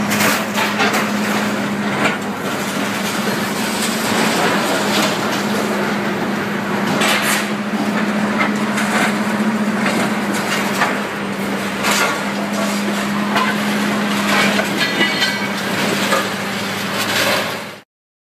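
Heavy machinery running with a steady hum, with irregular bangs and cracks of wood and scrap being knocked about in a salvage yard. The sound cuts off suddenly near the end.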